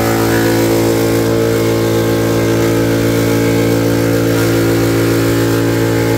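Portable high-pressure PCP air compressor running steadily, charging an air rifle toward its 160 bar set pressure. It gives a constant motor and pump hum made of evenly spaced tones, with no change in pitch.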